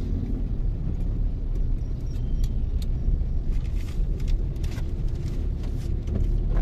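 Steady low rumble of a car on the move, heard from inside the cabin, with a few faint ticks here and there.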